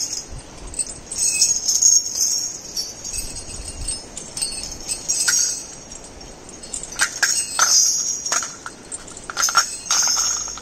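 Iron chain on a walking elephant clinking and jangling in repeated bursts as it moves.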